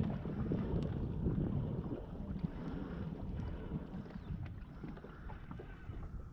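Wind buffeting the microphone on a kayak out on the water, an uneven low rumble, with a few light knocks and splashes around the hull.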